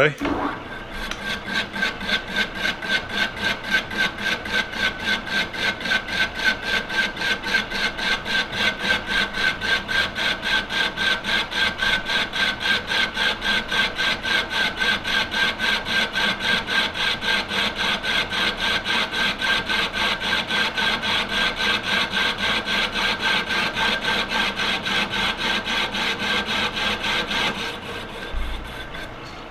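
Lathe turning the outside of a cast iron handwheel rim with a carbide insert: a rasping cut that pulses evenly as the tool bites through the hard casting crust of the out-of-true rim, with a steady whine behind it. The cut ends near the end.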